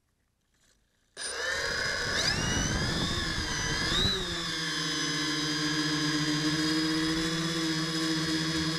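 Tricopter's three D283/11 750KV brushless motors with 10x4.5 propellers spinning up suddenly about a second in. Their pitch rises twice as the throttle comes up for takeoff, then they hold a steady whine.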